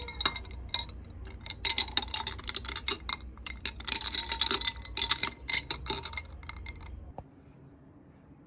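A utensil clinking rapidly and repeatedly against ringing glassware, like a spoon stirring in a glass cup; the clinking stops suddenly about seven seconds in.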